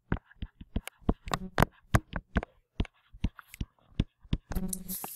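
Stylus tapping and scratching on a writing tablet as words are handwritten: a quick, irregular run of sharp clicks, several a second.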